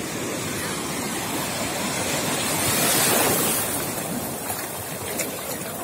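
Sea surf breaking and washing in over a shallow sand beach. The rush swells to its loudest about halfway through, then eases.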